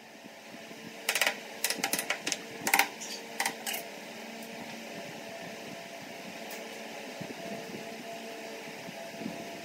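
A quick run of sharp wooden clicks and knocks, about eight in three seconds starting a second in, as small wooden blocks are handled and pressed into place in a wooden inlay pattern. A steady machine-like hum runs underneath.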